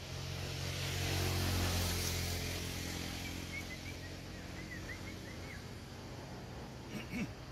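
A motor vehicle passing on the road, its engine hum growing louder over the first two seconds and then slowly fading away.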